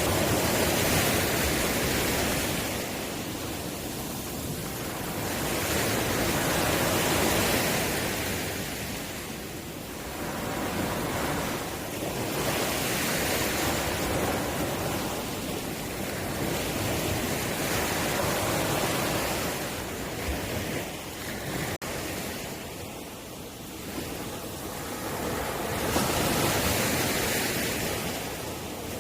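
Ocean waves breaking on the shore. The rushing surge rises and falls about five times, a wave every five to six seconds.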